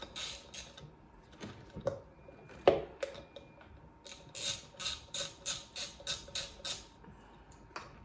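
Socket ratchet on a 7mm socket clicking in runs of quick strokes as it turns the wheel's self-locking nut, with a single sharp knock a little under three seconds in.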